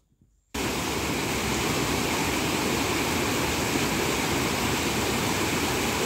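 Steady rush of water from a small cascade on a forest stream, starting suddenly about half a second in.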